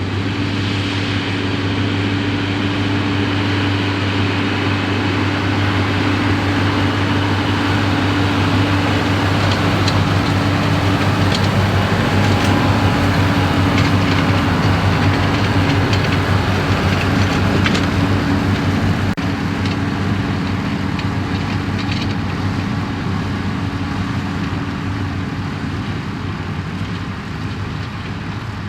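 New Holland TM155 tractor's diesel engine running steadily under load while pulling a Claas Variant 385 round baler, with faint ticking and clatter from the machinery. It grows louder to about halfway, then fades as it moves away.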